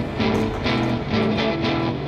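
Music: a guitar-driven song with chords and a steady beat of about four strokes a second.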